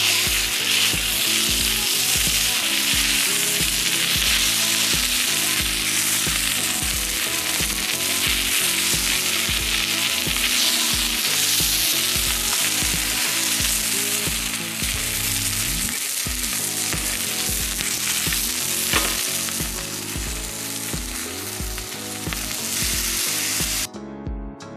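Food sizzling and frying in a pan, with background music with a steady beat underneath. The sizzling cuts off abruptly near the end while the music carries on.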